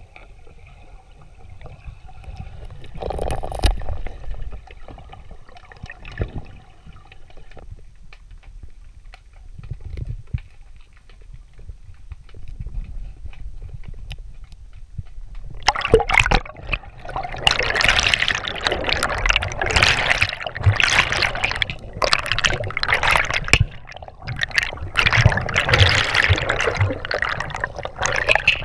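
Underwater sound heard through a GoPro: a low, muffled rumble of river water, then from a little past halfway a loud, irregular bubbling and churning as air bubbles rush past the camera.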